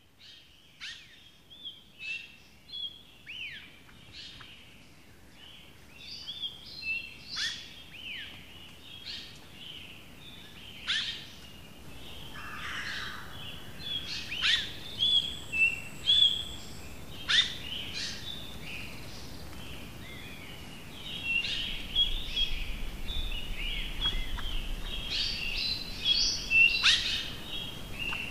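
Dawn chorus of several forest birds singing and calling, with quick high chirps, sharp falling sweeps and short trilled phrases. It builds from faint to busy and louder over the first half or so.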